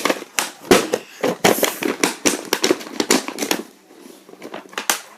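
A headphone box being smashed open: a quick run of sharp knocks and cracks, about two or three a second, dying down after about three and a half seconds.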